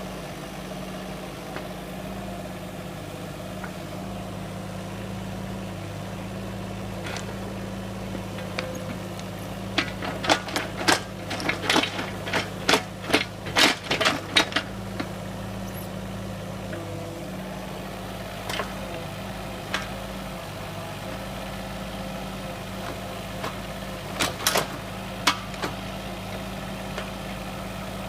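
Heavy equipment's diesel engine running steadily at idle. Sharp clanks and knocks come in a rapid cluster about a third of the way in and again briefly near the end.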